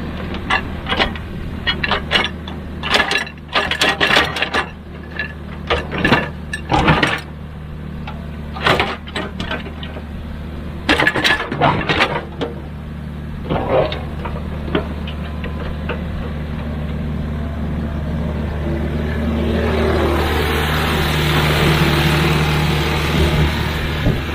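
Excavator diesel engine running steadily while digging soil, with repeated sharp knocks and clanks through the first half. In the last few seconds the engine grows louder and busier as it works harder.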